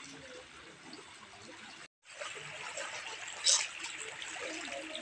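Floodwater flowing and trickling over a ledge, a steady wash of water. It breaks off about two seconds in, giving way to a steadier background hiss with a single sharp click and faint voices near the end.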